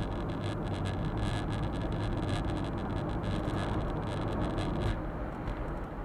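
Engine and road noise inside a Suzuki Super Carry kei truck's cab, picked up by a dashboard camera while driving. An irregular crackling patter rides on top and stops about five seconds in, where the overall noise drops.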